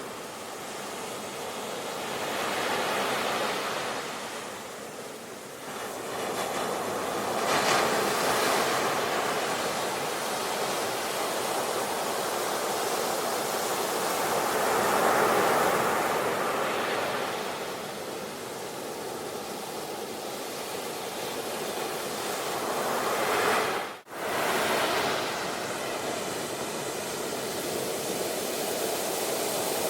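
Sea waves breaking and washing on the shore, the surf swelling and ebbing every several seconds. The sound briefly cuts out once, about three-quarters of the way through.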